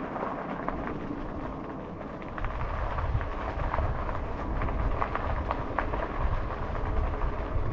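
Wind rumbling on the microphone and rolling noise from an e-bike ridden along a trail, with a few faint ticks. The low rumble grows louder about two and a half seconds in.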